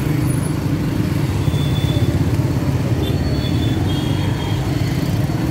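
Road traffic heard from a moving motorcycle: a steady low engine and wind rumble with fast flutter, and other motorcycles and cars passing close by.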